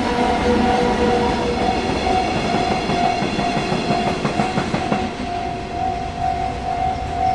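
Japanese level-crossing warning bell ringing its repeated tone while a train runs over the crossing. Wheels clatter over the rail joints, most densely around the middle.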